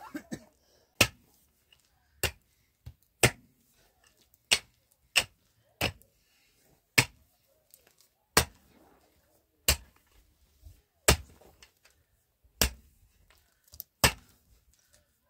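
Pickaxe striking hard, stony ground, about a dozen sharp blows roughly one a second as the ground is broken up.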